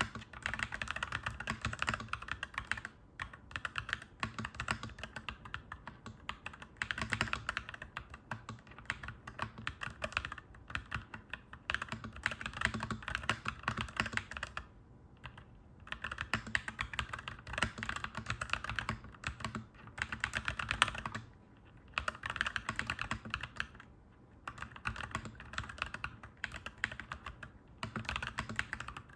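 Clacky mechanical keyboard typed on quickly, keystrokes clicking in dense runs broken by short pauses.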